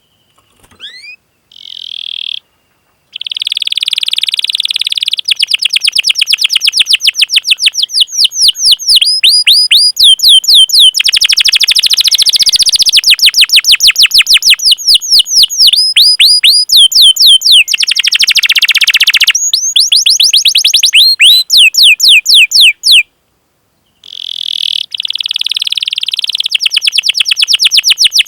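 Domestic canary singing a long run of quick, repeated downward-sweeping chirps ('cuit cuit'), several a second. The chirps are broken twice by short buzzy rolled trills, with a brief pause near the end.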